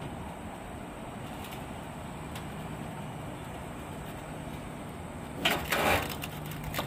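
Forklift moving a crated outboard motor onto a boat trailer: a steady low hum, then a loud burst of clattering knocks about five and a half seconds in as the load meets the trailer.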